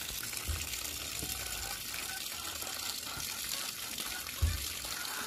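Steady rushing noise like running water, with two dull thumps, the louder one about four and a half seconds in.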